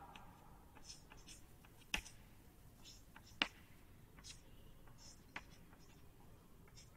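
Chalk faintly tapping and scratching on a blackboard while figures are written, with two sharper taps about two seconds and three and a half seconds in.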